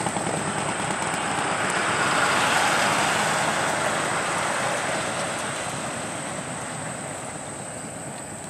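Vehicles driving past close by on the road, among them a pickup truck: tyre and engine noise that swells about two to three seconds in and then slowly fades away.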